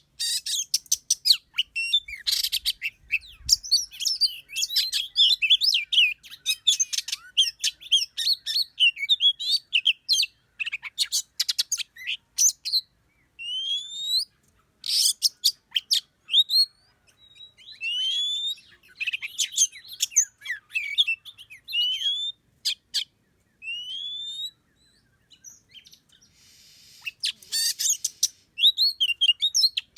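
Small songbirds chirping and calling: a dense run of quick chirps, rising whistles and sharp clicks, thinning out briefly about halfway and again near the end.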